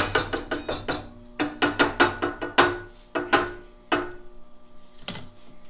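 Spatula knocking and scraping against a skillet and a butter dish as butter is added. A quick run of sharp taps with a short ringing note comes first, then a few slower single taps.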